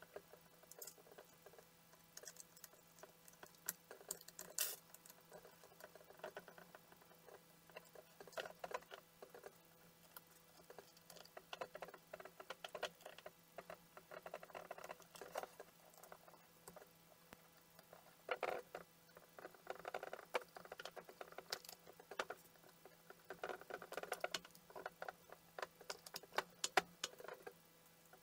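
Light clicks, taps and scraping of the plastic housing halves of a Bosch jigsaw being handled and fitted together by hand, scattered irregularly, with a few sharper clicks.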